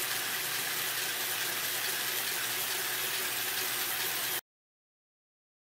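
Small geared DC motor running steadily, driving the plastic gears and legs of a 3D-printed walking robot, with a dense, even whirring hiss. It cuts off suddenly about four seconds in.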